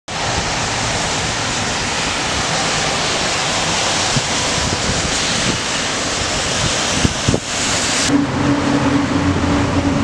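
Strong wind blowing across the microphone: a loud, steady rushing noise. About eight seconds in, the rushing cuts off abruptly and a steady low hum is left.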